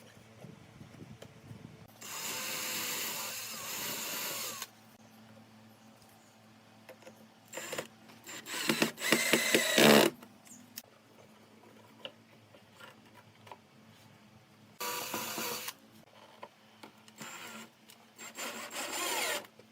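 A handheld power tool working wood, run in about five short bursts with pauses between; the loudest burst comes about eight to ten seconds in.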